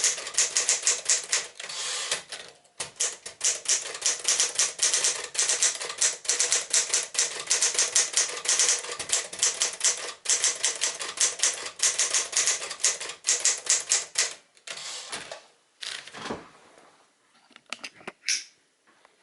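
A 1964 Smith-Corona Classic manual typewriter being typed on at a fast, steady pace, a rapid run of keystrokes with a brief pause about two and a half seconds in. About fourteen seconds in the typing stops, and a few scattered clicks and thumps follow.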